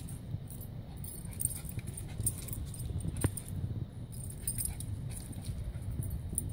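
A chihuahua scampering around at the base of a tree, the tags on its collar jingling as it runs, over a steady low rumble. A single sharp tick sounds about three seconds in.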